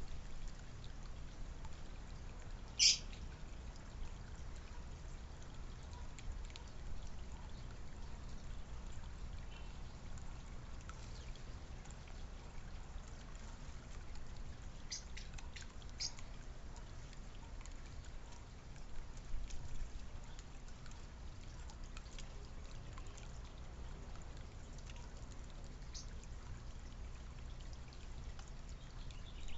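Backyard ambience: a few brief, high bird chirps over a steady low rumble. The loudest chirp comes about three seconds in, with a couple more around the middle and one near the end.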